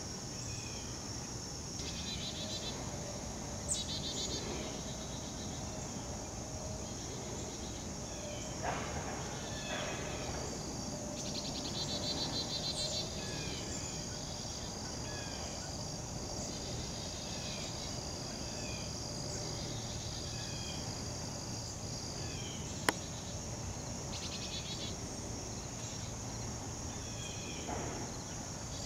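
Summer outdoor insect chorus: a steady high drone with pulsing trills that swell in for a second or two several times, over a faint low rumble. Short chirps from a bird repeat throughout, and one sharp click comes late on.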